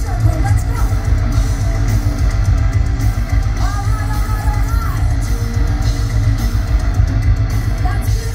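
Live heavy metal band playing: distorted electric guitars over a drum kit with a rapid kick-drum beat.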